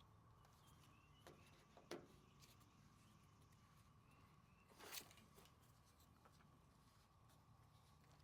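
Near silence: a faint steady hum with a few soft clicks, the clearest about two seconds and five seconds in, from wiring and plugs being handled.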